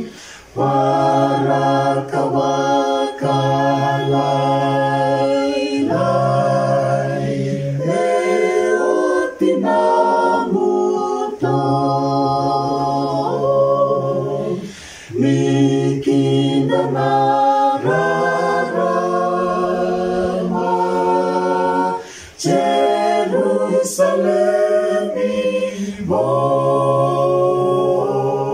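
Small mixed group of two men and three women singing a hymn a cappella, without accompaniment, in long held notes phrase after phrase, with short breaks for breath between phrases.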